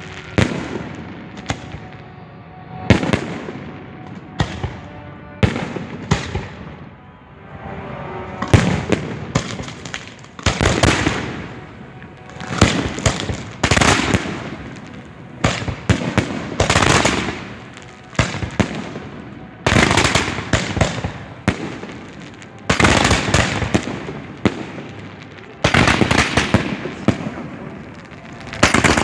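Professional display fireworks firing at close range: a run of sharp booms, roughly one a second, each fading out over about a second.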